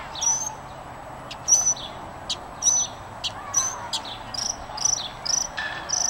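Gray catbird singing: a continuous run of short, varied squeaky and chirping phrases, about two a second, each one different from the last.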